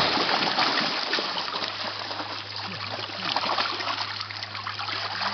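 Water splashing and running continuously, with many small sharp splashes, over a faint steady low hum.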